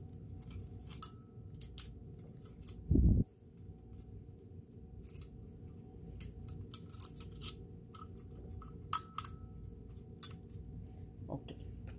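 Small bristle brush scrubbing and scraping inside the metal mechanism of a Kenmore 158 sewing machine, giving irregular light scratches and clicks, with one dull thump about three seconds in.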